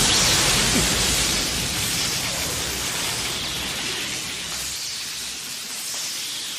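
Anime lightning-release (raiton) jutsu sound effect: a steady crackling electric hiss that slowly dies away.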